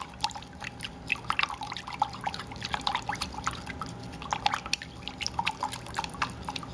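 Salad dressing being stirred in a glass measuring cup with a wooden chopstick: quick, irregular ticks of the wood against the glass over the wet swish of the liquid.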